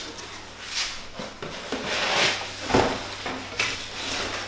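Cardboard shipping box and packaging being handled: irregular rustling and scraping as the Instant Pot is pulled out and the box moved aside, with one dull thump a little after halfway.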